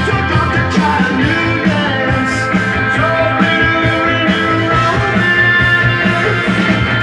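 Rock song with a singer and a steady beat, played from a vinyl record on a Garrard Zero 100 idler-drive turntable.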